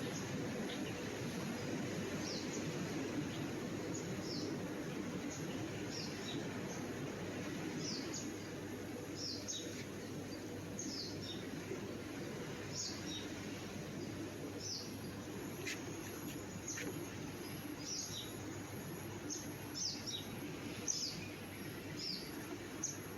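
A bird calling over and over in short, high, downward-sliding chirps, roughly one a second and sometimes in pairs, over a steady low rumble of outdoor background noise.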